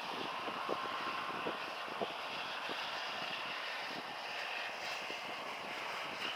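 Steady rush of wind and rippling water, with small soft splashes about every half second in the first half.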